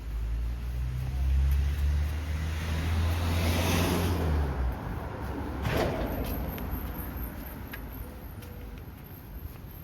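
A road vehicle's engine rumbling close by, building up and then dying away after about four and a half seconds. A short sharp hiss comes about a second later.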